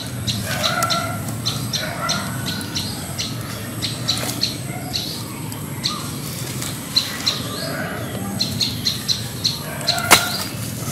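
Forest birds chirping: many short, high chirps repeated quickly, with lower calls every few seconds. About ten seconds in a single sharp knock as a stone is set onto the fire pit.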